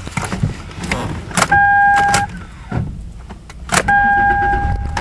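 Steady electronic warning tone from a car, sounding twice: first briefly, then again to the end. Each time it starts right after a sharp knock, over the low rumble of the car.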